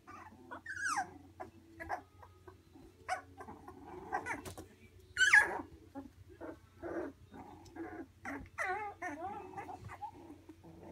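Three-week-old Labradoodle puppies giving many short, high-pitched barks and yips, some sliding down in pitch. The loudest is a sharp yelp about five seconds in, and there is a run of wavering calls near nine seconds.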